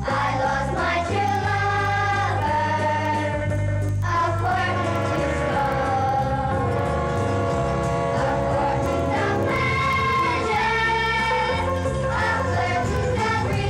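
Music with voices singing long held notes over a steady bass line.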